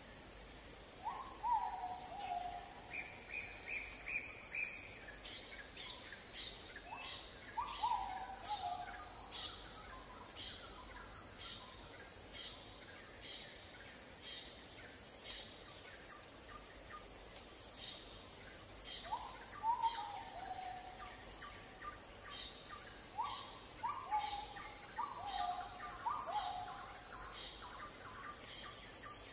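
Birds calling over a steady drone of insects: several short calls that drop in pitch, some overlapping near the end, a quick run of higher repeated notes a few seconds in, and a regular insect chirp about once a second.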